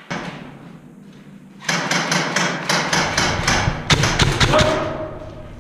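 Airsoft guns firing in a fast series of sharp cracks, about five a second and quicker near the end of the run, reverberating in a vaulted brick room. One single crack comes just before the run.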